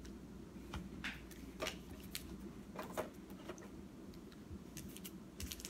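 Faint, scattered light clicks and rustles of hands handling a clear plastic bag and a paper poster on a tabletop.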